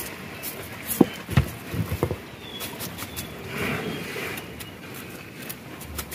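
A fine-mesh shrimp net being shaken out over a plastic basket: a handful of knocks and clatters about one to two seconds in, then light scattered clicks and patter as the tiny shrimp drop out.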